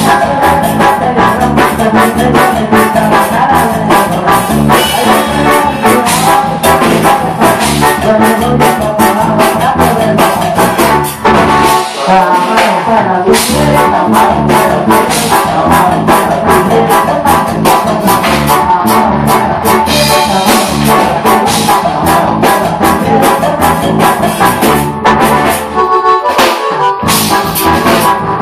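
A live band playing with a steady beat: keyboard, electric guitar, drum kit and congas.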